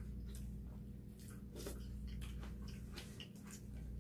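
Quiet eating sounds: chewing, with a few faint light clicks of spoons and chopsticks on bowls and plates, over a steady low hum.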